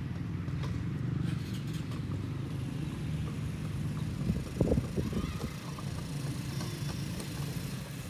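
Motorcycle engine running steadily, a low pulsing rumble, with a few louder low thumps about halfway through.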